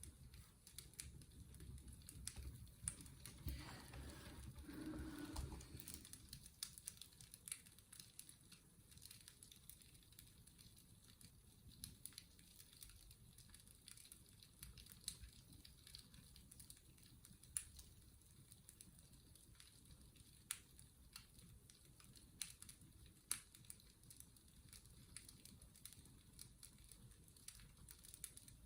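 Faint fireplace crackling: scattered sharp pops and snaps over a low hiss. A brief louder, low rustling sound comes a few seconds in.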